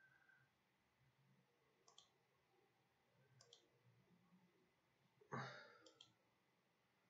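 Near-silent room with a few computer mouse clicks, two of them close together about three and a half seconds in. A louder, short clatter comes a little past five seconds in.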